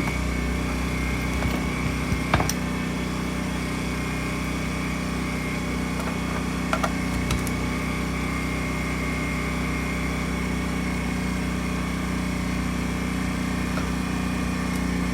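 Honda EU10i inverter generator's small single-cylinder four-stroke engine running steadily, with a few light clicks about two and a half and seven seconds in.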